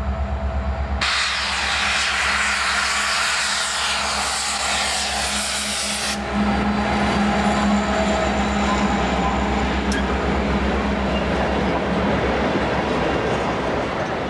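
Freight train passing close by, led by EMD SD70M diesel locomotives with a steady engine drone. A loud rushing hiss runs through the first half and stops abruptly about six seconds in, after which the locomotive engine sound is louder.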